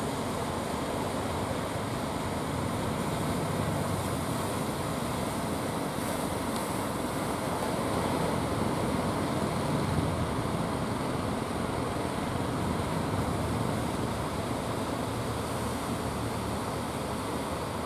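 Steady rush of ocean surf, waves breaking and washing toward the shore.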